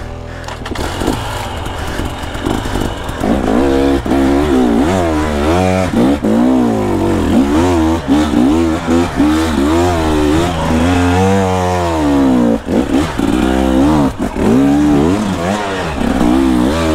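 Two-stroke enduro dirt bike engine with the throttle worked hard on a steep trail climb. The revs rise and fall over and over, about once a second, getting louder a few seconds in.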